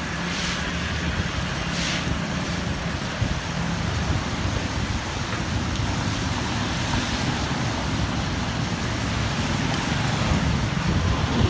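Steady road traffic noise: a continuous rush of passing vehicles with a low engine hum.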